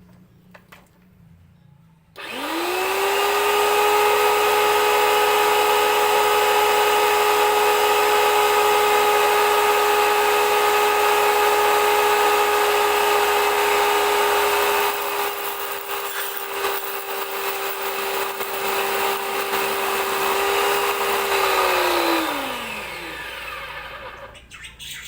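H&L ABW VGS 70 high-pressure washer's brushed motor and pump starting about two seconds in, running with a steady high whine, then winding down near the end. It is running while trying to draw water from a bucket, which it cannot suck up without a primed, flowing supply.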